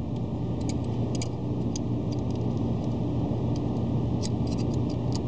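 Scattered light clicks and taps of a hand working at a hose clamp and hoses beside a diesel injection pump, over a steady low machine hum.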